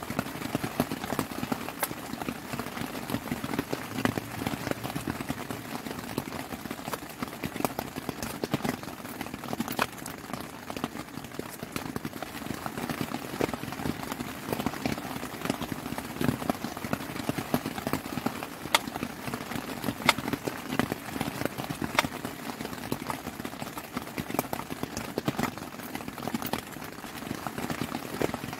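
Kitchen knife chopping vegetables on a wooden cutting board: irregular sharp taps of the blade striking the board, some in quick runs, over a steady hiss of rain.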